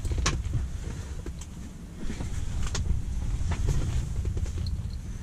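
Close handling noise as a perch is unhooked with pliers: scattered sharp clicks and rustles over a steady low rumble.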